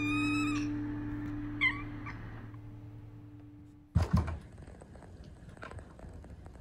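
A cat meows twice, a rising call at the start and a shorter one about two seconds in, over the last held notes of soft background music as it fades out. About four seconds in, a couple of sudden thumps and soft scuffling follow as Maine Coon cats wrestle.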